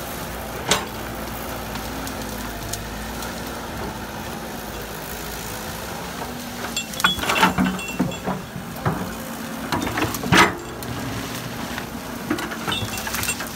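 Caterpillar E120B hydraulic excavator running steadily at close range. From about seven seconds in, its working parts give out repeated metal clanks and short squeals, the loudest clank about ten and a half seconds in.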